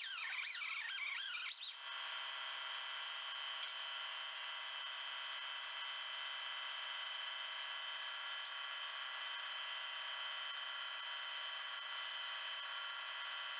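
Small right-angle die grinder with a sanding disc, blending the weld on an outboard propeller blade. Its whine wavers in pitch for about the first two seconds, then holds at a steady high pitch.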